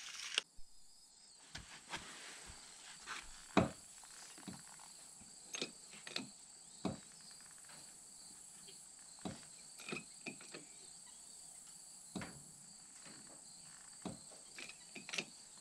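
Steady high chirring of insects in the background, with scattered light knocks and clicks of hands handling a bottle jack and wood blocking, the loudest knock a few seconds in.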